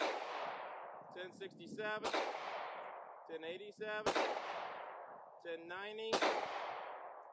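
Glock 19 Gen 4 pistol with an unported barrel firing 9mm 115-grain full metal jacket rounds, a steady string of four shots about two seconds apart, each shot followed by a long fading echo.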